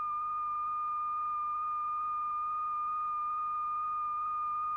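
Steady, high-pitched sine tone held at one pitch, with a fainter overtone an octave above. It is the audible tone that sets a powder-strewn diaphragm vibrating.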